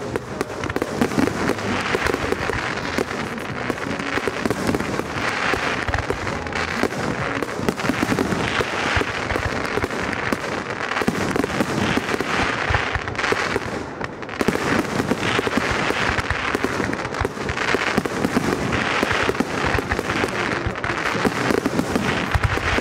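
Fireworks display: a dense, continuous run of bangs and crackling, with a brief lull about fourteen seconds in.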